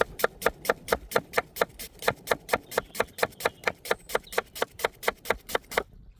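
A knife chopping quickly on a wooden cutting board: an even run of sharp knocks, about four to five a second, that stops shortly before the end.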